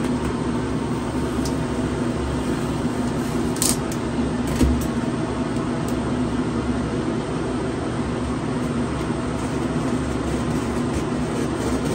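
Steady machine hum, like a room air conditioner, running throughout. Over it come a few light clicks and taps, a little over a second in and again around four to five seconds in, as a folding knife is opened and a cardboard box is handled.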